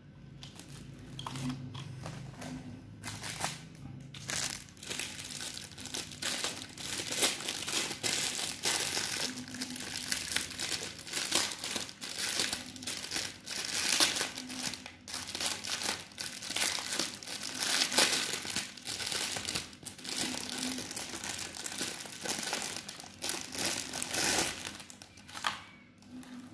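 Plastic packaging crinkling and rustling as hands unwrap and handle an LED string light: a long, dense run of irregular crackles that thins out near the end.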